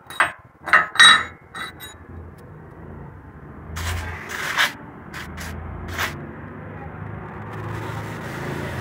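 A cluster of sharp metal knocks and clinks, with a few more about four to six seconds in, as a steel truck-leaf-spring blade blank is handled in a bench vise. A steady low hum and some scraping run beneath.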